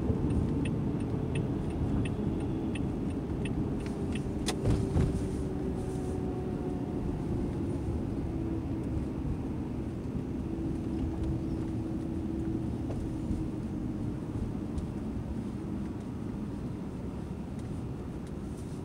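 Car cabin road and engine noise while driving at city speed, slowly getting quieter toward the end. A light, regular ticking, about three ticks every two seconds, runs through the first few seconds and then stops.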